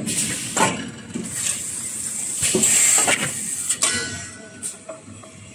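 XY-TQ-B high-speed gluing-lamination toilet paper machine running: a steady hiss with a thin high whine, broken by irregular knocks and rattles, louder in the middle.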